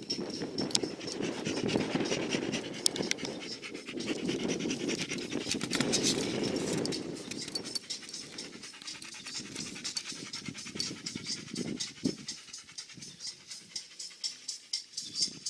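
A dog panting, heavy and fast for the first seven seconds or so, then in softer, separate breaths.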